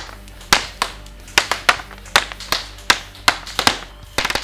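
Airsoft AEG shots with 0.2 g BBs smacking into paper targets: about a dozen sharp single pops at uneven intervals, then a rapid full-auto stream of hits near the end. Faint background music runs underneath.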